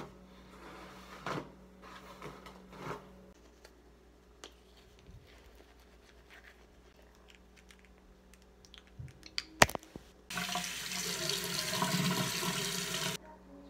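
Bathroom sink tap running in a steady rush for about three seconds near the end, then stopping suddenly. Before it come a few faint brushing strokes and a sharp click.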